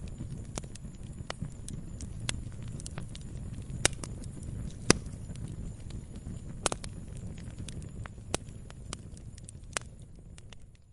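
Log fire burning: a low steady rumble with frequent sharp crackles and pops, a couple of louder pops about four and five seconds in. The sound fades out near the end.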